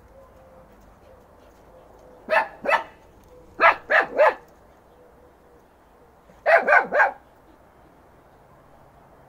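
Fox Terrier puppy barking in three quick bursts: two barks, then three, then three more, each bark short with a dipping pitch.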